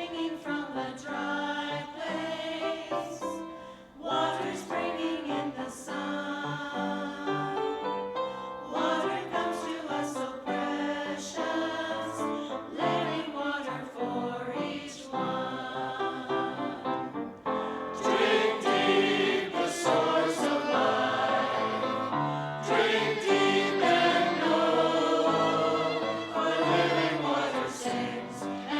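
Church choir singing an anthem with instrumental accompaniment, growing louder about eighteen seconds in.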